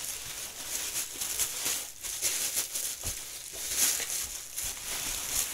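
Plastic wrapping crinkling and rustling in irregular bursts as it is handled and pulled open.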